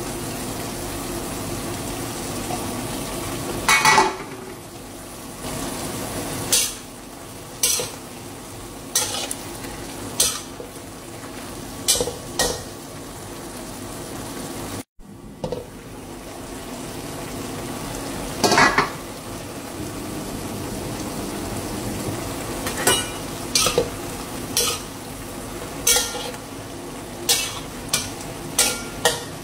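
Bottle gourd and pork sizzling and bubbling in a nonstick pan, with a utensil clicking and scraping against the pan as the food is stirred. The strokes come in short, scattered knocks, more often in the second half. The sound cuts out for a split second about halfway through.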